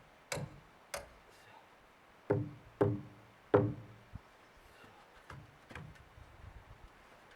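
A hand tool striking timber in a series of sharp knocks, each with a short ring: about five hard blows in the first four seconds, then a run of lighter taps.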